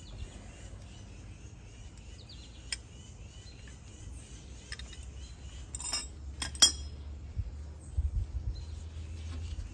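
Small steel parts clinking as they are handled: a removed bracket, washer and threaded shaft knocking against an adjustable wrench, with a few sharp clicks, the loudest about six to seven seconds in. Birds chirp faintly in the background.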